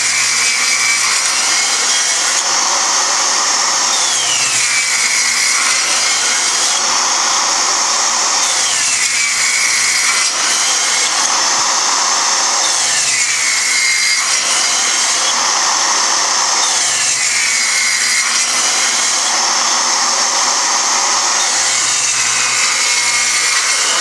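Circular saw running on a guide rail, making a series of shallow kerf cuts across plywood. The sound repeats about every four seconds, with a falling tone and a swell of cutting noise on each pass.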